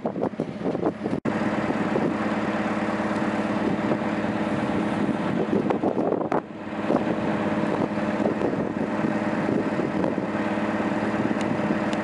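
Wind on the microphone and knocking as the rear doors of a refrigerated box body are handled. From about a second in there is a steady mechanical hum with several even tones: the DAF LF55 fridge truck running at idle, with its Thermo King T800R refrigeration unit fitted.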